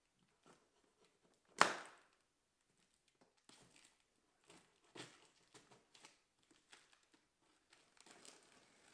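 A plastic packing strap around a cardboard box snaps as it is cut, once, sharply, about a second and a half in. It is followed by scattered clicks and rustling as the loose strap is pulled and slid off against the cardboard.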